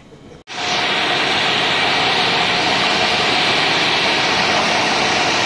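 Electric fan blowing a steady stream of air that winnows the leaves off olives as they are poured through it. The sound starts suddenly about half a second in and stays even, with a faint steady hum.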